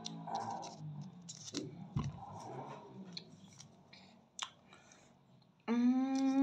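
Sticky, crackly handling of a ready-to-use wax strip as it is peeled apart and pressed onto the skin, in scattered small clicks and rustles. Near the end a person starts a steady hummed note.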